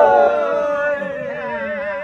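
A man singing a vaqueiro's toada, holding one long drawn-out note at the end of a verse. The note slides down a little at first, then holds with a slight waver.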